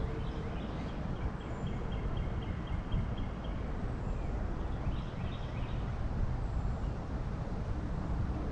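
A bird calling in a quick run of short high chirps, about four a second, for about three seconds, then a few more calls about five seconds in, over a steady low rumble.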